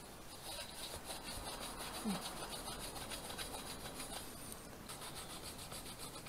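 Cloth swab on a cleaning rod scrubbing back and forth inside a trumpet's valve casings and tubes: a faint, quick, repeated rubbing, with one short squeak about two seconds in.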